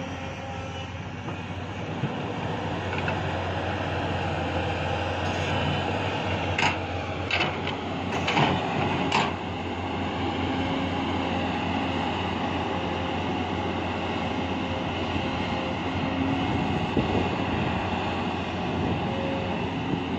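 SANY crawler excavator's diesel engine running steadily under load as it digs and swings, with a few sharp knocks around the middle.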